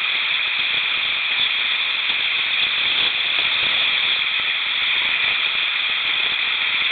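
Steady hissing rush of creek water running over rocks and small riffles.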